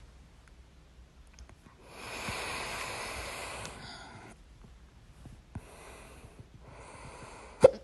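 A person breathing audibly, one long breath followed by two shorter ones, then near the end a single sharp, loud hiccup.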